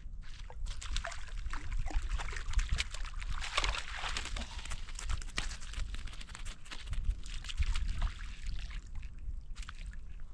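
Water splashing and sloshing in a rapid, irregular run, starting about half a second in and dying away near the end, over a low rumble of wind on the microphone.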